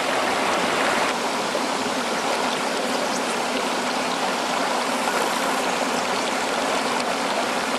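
Clear, shallow mountain trout stream flowing over a rocky bed: a steady rush of running water.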